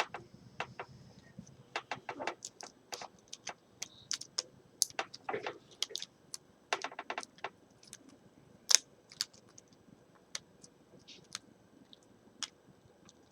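Irregular small clicks and taps of a replacement laptop LCD panel and its parts being handled and fitted, with one sharper click about nine seconds in.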